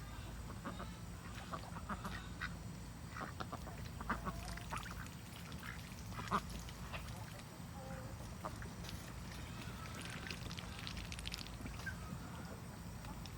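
Ducks quacking: short calls scattered irregularly, with no steady rhythm.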